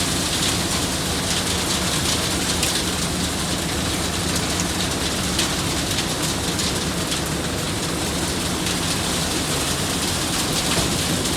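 Asphalt-paving machinery with diesel engines running steadily under a constant hiss.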